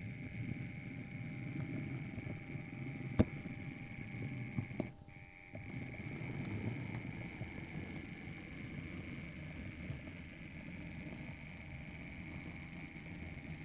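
Model train rolling along the track, heard from a camera riding on it: a steady rumble of wheels on rail over a steady high whine. There is a sharp click about three seconds in and a few lighter clicks a little later, and the sound dips briefly about five seconds in.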